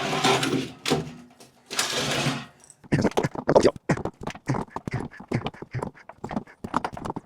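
Drain line being worked off a water heater's pressure relief valve: two bursts of scraping, then a quick, uneven run of small clicks and knocks from the pipe and fitting being handled.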